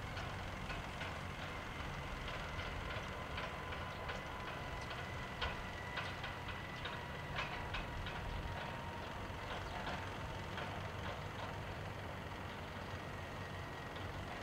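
Airport apron background noise: a steady low rumble with a faint, steady high-pitched whine over it and scattered light ticks at irregular intervals.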